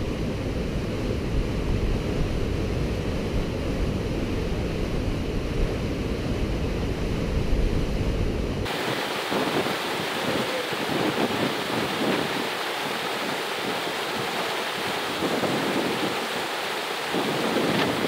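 Wind buffeting the microphone over the steady rush of breaking white water. About nine seconds in, the low wind rumble cuts out suddenly, leaving the even hiss of the rushing water.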